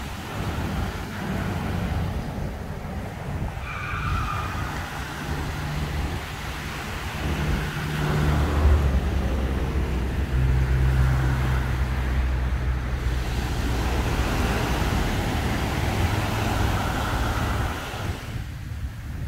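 Road traffic passing: a car engine's hum that swells about halfway through, over the steady wash of small waves breaking on the beach.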